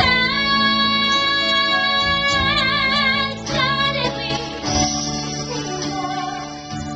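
Woman singing a musical-theatre song live over an instrumental accompaniment. She holds one high note for about two and a half seconds, with vibrato coming in at the end of it, then sings on.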